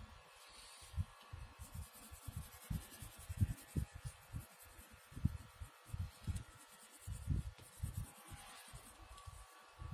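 Faint handling noise on a tabletop: soft, irregular low thumps with some light rubbing and scratching.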